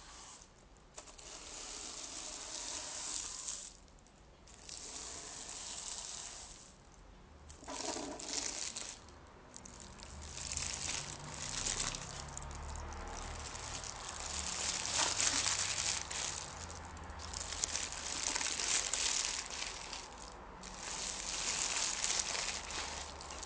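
Close crinkling and rustling of a torn sheet being crumpled and handled, in stretches of a second or a few with short pauses, growing busier and louder in the second half.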